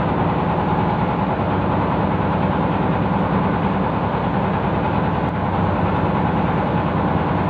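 A small engine running steadily at idle, with an even low pulse.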